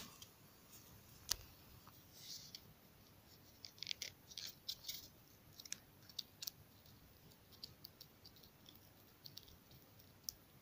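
Faint, scattered clicks and scrapes of a teething kitten biting and clawing at a stick.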